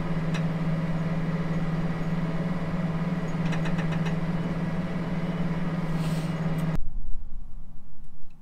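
John Deere tractor engine running steadily under load, heard from inside the closed cab as a constant, even drone, with a few light clicks partway through. About seven seconds in it cuts off suddenly to wind buffeting the microphone.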